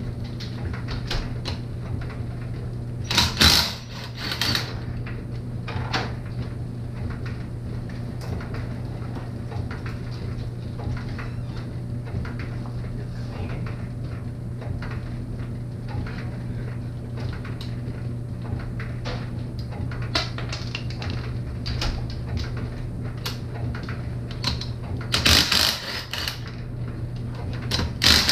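Cordless impact wrench hammering the wheel's lug nuts loose in short bursts of about a second and a half: one about three seconds in and two more near the end. Small clicks and clatter come between the bursts, over a steady low hum.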